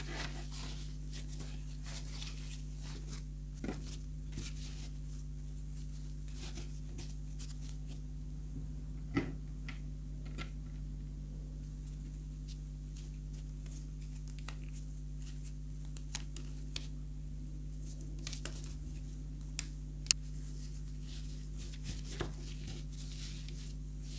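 Scattered light clicks, taps and rustles of a toy tie-dye kit's plastic and paper parts being handled, a few sharper clicks among them, over a steady low hum.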